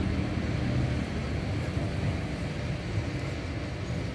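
A butcher's cleaver cutting through pork ribs on a wooden stump block, with a small knock about three seconds in, over a steady low rumble of background noise.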